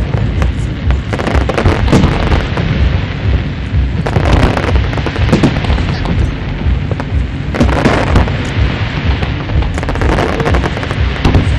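Aerial fireworks shells bursting one after another: repeated booms and crackling over a constant low rumble, with louder crackling spells about four and eight seconds in.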